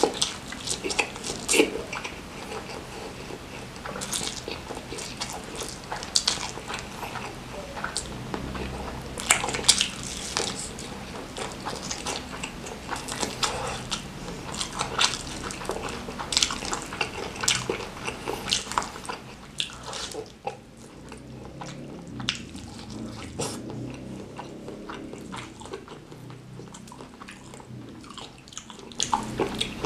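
Close-up eating sounds of a person chewing and biting: mouthfuls of fried instant noodles, then crispy-coated fried chicken, with wet smacking and crunchy clicks. The chewing thins out and grows quieter in the second half.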